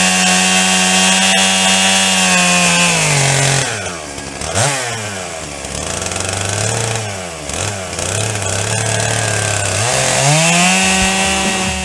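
Stihl 661 two-stroke chainsaw at full throttle, cutting through dry seasoned oak. About three and a half seconds in, the throttle is released and the saw drops to low, uneven revs, with one short blip. Near the end it revs back up to full speed.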